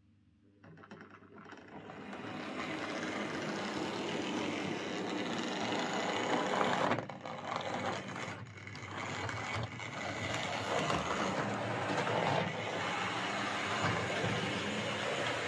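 Tri-ang R.354 'Lord of the Isles' OO gauge model steam locomotive starting off and running on its track: the whirr of its small DC motor and worm gear, with the wheels rattling over the rails. It builds up over the first couple of seconds and dips briefly twice around the middle, in keeping with the owner's finding that it runs a bit stop-start over points because it is front heavy.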